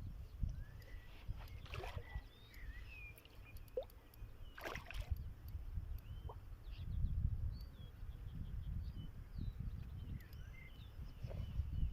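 Wind rumbling on the microphone, with small birds chirping and twittering and a couple of brief rustles.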